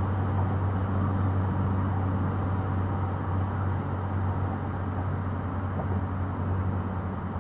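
Steady road and engine noise of a car cruising at about 68 mph on a freeway, picked up inside the cabin by a dashcam: a low, even hum under a broad rumble.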